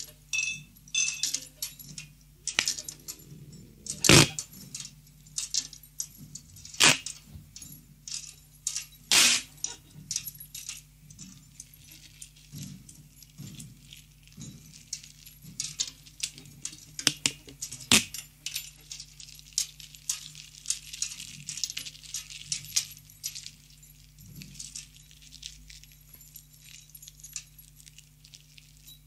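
Noise-rock passage of irregular clattering and sharp knocks with dense high crackle over a steady low hum. The knocks and crackle thin out and fade away near the end.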